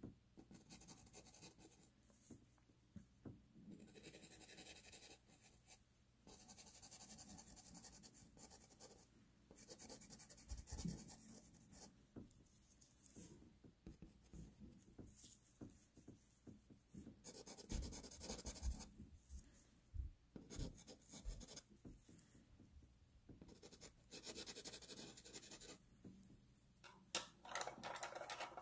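Pastel pencil scratching over textured paper in faint stretches of quick shading strokes, with short pauses between them and a few soft knocks.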